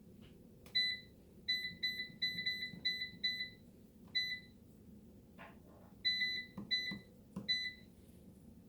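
Air fryer control panel beeping as its buttons are pressed: about a dozen short, high beeps at uneven spacing in two runs, with a few faint knocks between them, as more cooking time is set.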